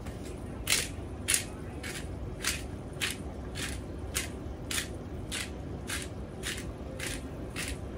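Pepper grinder twisted by hand, crushing peppercorns in a steady run of crunches about two a second, starting under a second in and stopping near the end.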